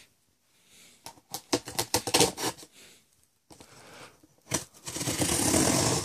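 Packaging being handled and opened by hand: scattered clicks and knocks, then a longer rasping, tearing-like rustle from about four and a half seconds in.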